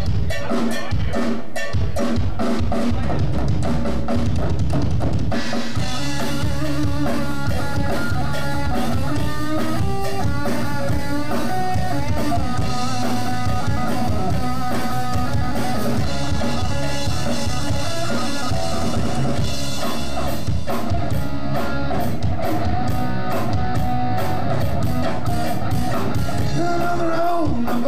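Live rock band: a drum kit plays a beat on its own for about the first five seconds, then electric guitars and bass come in and the full band plays on.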